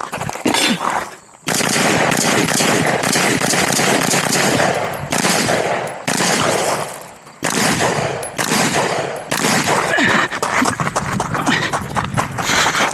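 Rifle firing rapid strings of shots in a practical-shooting stage, with short breaks about a second, six seconds and seven seconds in.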